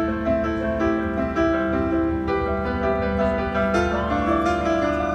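Piano playing an instrumental passage of a live song between sung lines, with held notes and chords that change every half second or so.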